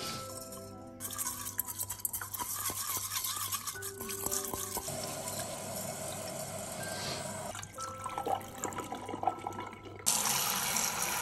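Raw rice being washed by hand in a stainless steel pot: water swishing and tap water running into the pot, with a louder rush of running tap water starting about ten seconds in. Soft background music with sustained tones plays throughout.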